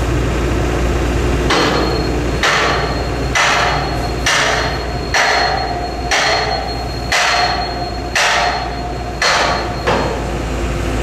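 Hammer blows on a large steel pin in a Ferris wheel spoke joint, driving it in. There are about ten strikes at roughly one a second, starting about a second and a half in, each with a short metallic ring.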